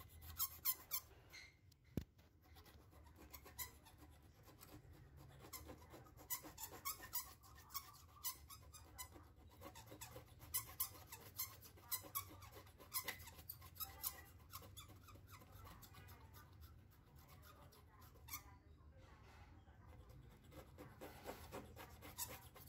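A blade held in a clamp scraping old polarizer film and glue residue off an LCD panel's glass, in faint, short, squeaky scratching strokes that come in uneven runs.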